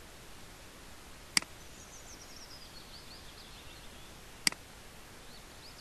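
Two sharp computer mouse clicks about three seconds apart, over a steady low hiss. Faint high chirping runs in the background between them.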